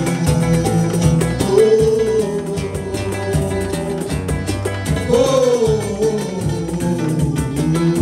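Live samba: acoustic guitar strumming with a pandeiro and a hand-beaten tantã drum, and a man's voice singing the melody over them.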